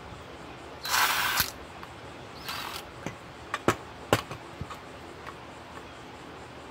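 Ryobi cordless impact driver run in two short bursts against a stuck screw, then a scatter of sharp metal clicks as the bit works at the screw heads. The screws are stripping rather than turning, which the owner puts down to epoxy or something like it on the threads.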